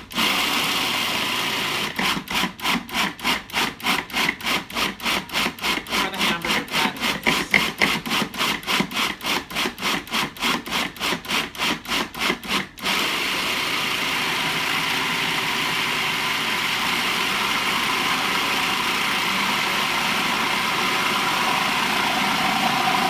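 Food processor blending a thick bean-burger dough. The motor first runs with a rapid, even beat of about three a second, then at about 13 s runs on as a steady whir.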